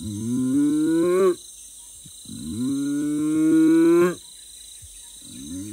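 Cartoon howler monkey's calls: two long, low, rough calls that rise a little in pitch and break off sharply, then the start of a third near the end.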